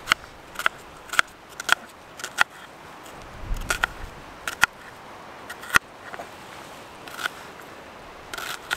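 Knife slicing a red onion on a small cutting board: a run of irregular sharp knocks as the blade cuts through and meets the board, some coming in quick pairs.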